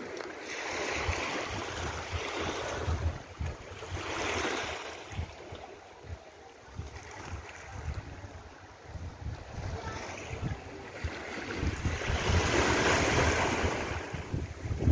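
Sea waves washing against a rocky shoreline in swells that rise and fall, the loudest near the end, with wind buffeting the microphone.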